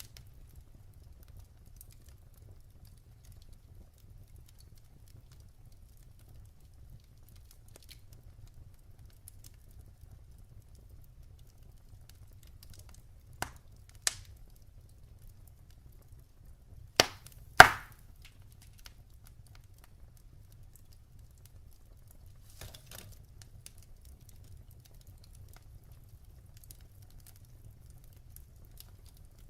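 Wood fire burning in a fireplace: sparse crackles and sharp pops over a low steady rumble. Two pairs of louder pops come a little before and after the middle, the last of them the loudest.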